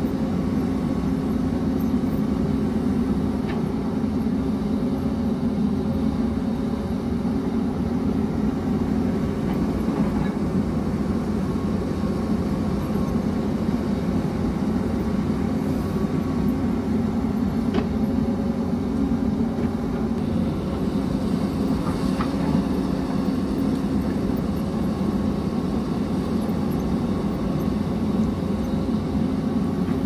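Hyundai 220LC crawler excavator's diesel engine running steadily under digging load, with a few faint clicks along the way.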